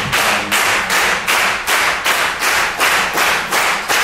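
Many people clapping hands together in unison, a steady even pulse of about three claps a second, during a clapping rhythm exercise.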